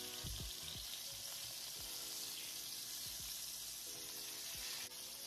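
Flour-dredged chicken breasts searing in olive oil and butter in a pan on medium-high heat: a steady sizzle.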